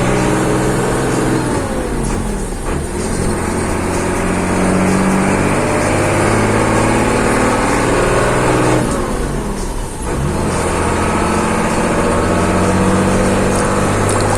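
Scania 112 truck's diesel engine pulling on the road. The engine note drops about two seconds in and again about nine seconds in, as gears are changed, and climbs steadily in between.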